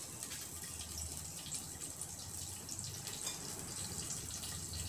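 Faint steady sizzle with small scattered crackles: oil and butter heating in a steel cooking pot on the stove.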